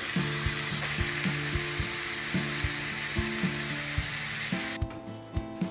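Ground beef sizzling as it fries in a stainless-steel skillet, with soft background music underneath; the sizzle cuts off near the end.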